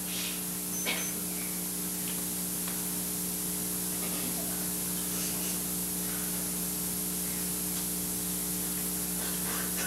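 Steady hiss and electrical hum of the recording during a silent pause, with a faint click about a second in.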